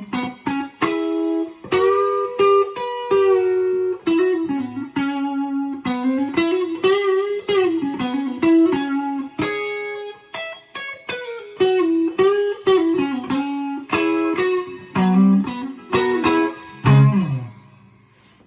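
Relic Telecaster electric guitar playing a single-note lead line: picked notes with string bends and quick runs. It ends on low notes that ring out and fade away.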